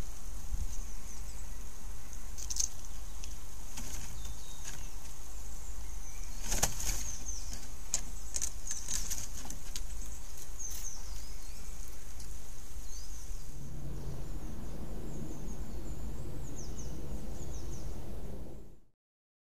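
Woodland birdsong: small birds chirping and twittering at a high pitch over a steady low rumble of wind and microphone noise, with a few short sharp rustles in the first half. After a cut a heavier low hum joins the rumble, and the sound stops abruptly near the end.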